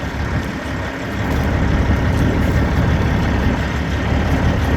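Wind buffeting the microphone: a loud, uneven low rumble with no clear pitch.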